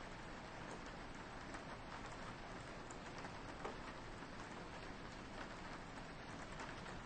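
Soft steady rain with scattered drops tapping on a window pane.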